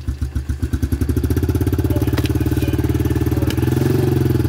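110 cc pit bike's small single-cylinder engine running just after being started, uneven at first and steadier about a second in, then revving up a little near the end as the throttle is opened.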